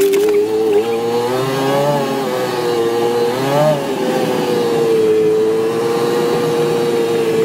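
Side-by-side utility vehicle's engine running as it drives, its note wavering a little and rising briefly about three and a half seconds in, then holding steady.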